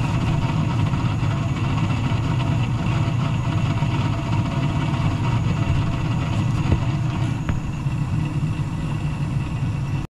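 Gas furnace firing in high (second) stage, its draft inducer motor running at raised speed with a steady low rumble and hum. This is the noise that came on as soon as the gas valve stepped up to second stage, which the technician puts down to the draft motor.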